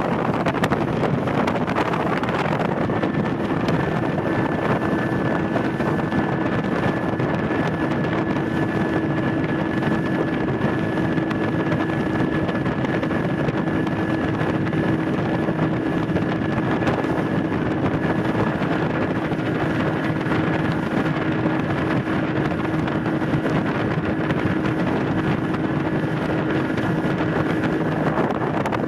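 A boat's outboard motor running at a steady speed under way, with wind buffeting the microphone and water rushing along the hull. A steady engine hum sets in a couple of seconds in and holds until near the end.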